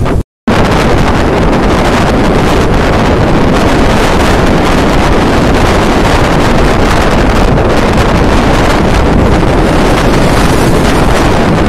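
Heavy wind buffeting on the microphone of a camera on a moving motorcycle, a loud, steady rush that covers the engine and road noise. The sound drops out for a moment about a quarter second in.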